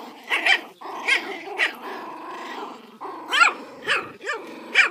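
Two puppies play-fighting, growling steadily with sharp, high-pitched yaps and yelps over it, a quick run of four yaps in the last two seconds.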